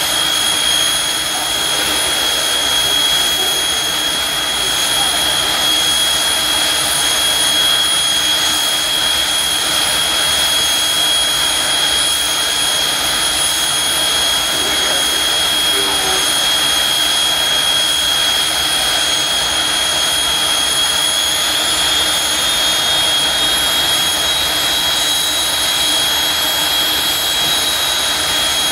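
Jet dragster turbine engines (Pratt & Whitney) running at idle with a steady high-pitched whine over a broad rush. The whine climbs a little in pitch about 21 seconds in.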